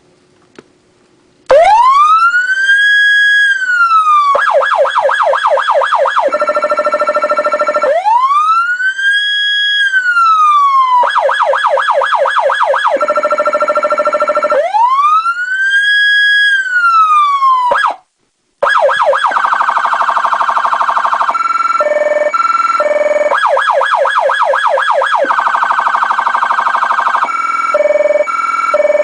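Federal Signal Touchmaster Delta electronic siren switching on about a second and a half in and cycling through its tones in sweep mode. Each cycle is a rising-and-falling sweep, then a fast yelp and a rapid warble, repeating about every seven seconds. After a brief cutout near the middle, it runs faster warbling tones broken by alternating two-pitch bursts.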